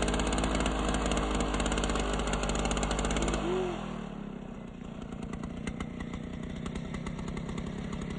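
Gas-powered ice auger engine running fast. About three and a half seconds in it drops back to a lower, quieter running speed.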